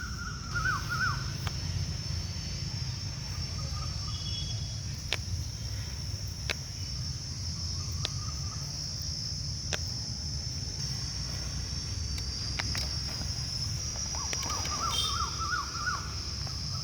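Birds chirping in quick falling notes, once about half a second in and again near the end, over a steady high-pitched hiss and a low rumble of background noise, with a few scattered sharp clicks.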